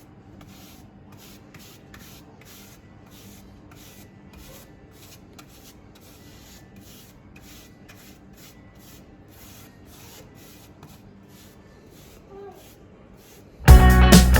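Paintbrush stroking paint onto a wall: a faint, soft rasp repeated about twice a second, at an uneven pace. Loud guitar music cuts in suddenly near the end.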